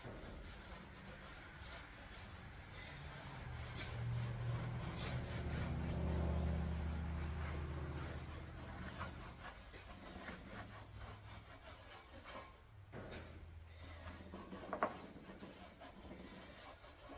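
A rag rubbing and wiping over a metal panel during a cleaning pass with lacquer thinner. A low rumble swells up a few seconds in and fades away, and there is a sharp click near the end.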